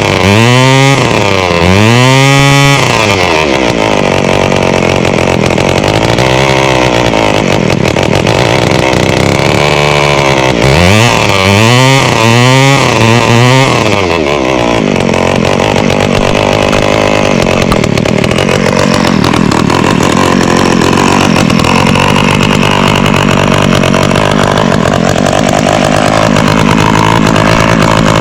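A 2001 Homelite Trim Lite string trimmer's 25cc two-stroke engine running. It is blipped up and down several times in the first half, then runs on at a lower, steadier speed. The owner says it runs a little rough and thinks the carburetor might need a rebuild.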